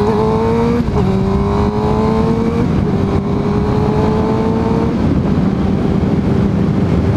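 Suzuki GSX-R sportbike engine accelerating through the gears: the pitch climbs, drops at an upshift about a second in, climbs again, drops near three seconds, climbs once more and drops near five seconds, then holds steady at cruising speed. A steady rush of wind noise runs under it.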